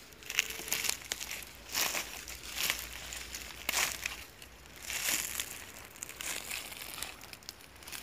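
Footsteps crunching through dry leaf litter and twigs, an uneven crunch roughly once a second.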